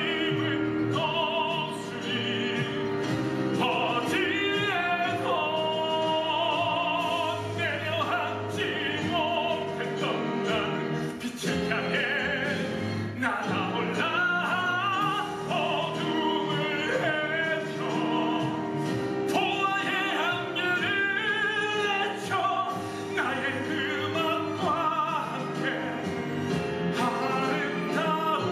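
A male musical-theatre singer singing a dramatic solo with wide vibrato and long held notes, over sustained orchestral backing music.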